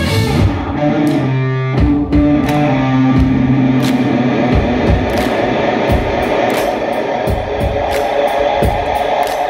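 Hard rock band playing live with no vocals: electric guitar holding long notes, then drums coming in about two seconds in with a steady beat of roughly two hits a second under a busy guitar part.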